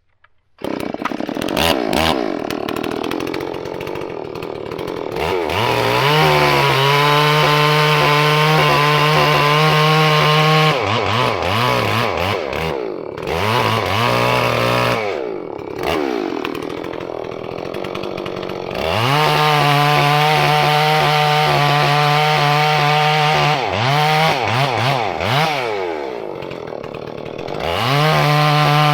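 Two-stroke engine of a Holzfforma G466 chainsaw (Stihl 046 clone) running, revved repeatedly: held at high revs for several seconds at a time, with the pitch falling back and rising again between.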